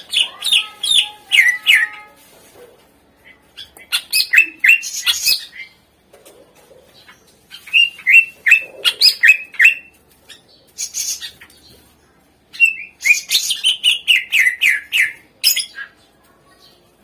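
Cucak ijo (greater green leafbird) singing in loud phrases of quick, repeated falling notes, about five phrases with short pauses between them.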